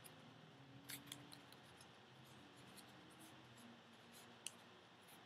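Faint crinkling of a folded paper dollar bill as it is creased and shaped by hand, with a few small crackles about a second in and again near the end.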